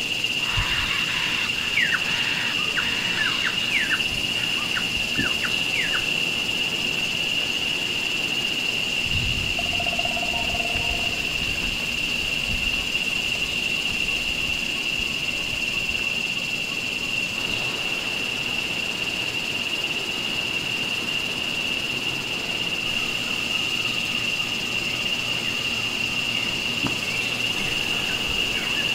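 Steady high-pitched drone of forest insects, with a run of quick bird chirps in the first few seconds.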